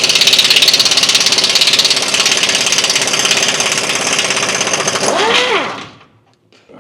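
Impact wrench hammering rapidly on the nut of a leaf-spring front eye bolt, undoing it. Near the end the pitch rises and falls briefly, then it stops about six seconds in.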